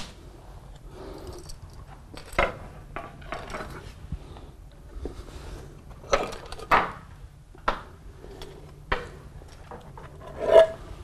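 Floor tiles being lifted off the floor and set down on one another, a handful of separate hard clacks and knocks, the loudest near the end.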